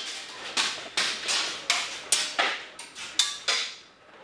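Airsoft gunfire inside a metal-walled repair bay: an uneven string of sharp cracks and metallic clacks, two to three a second, as shots go off and BBs strike metal cabinets and machinery.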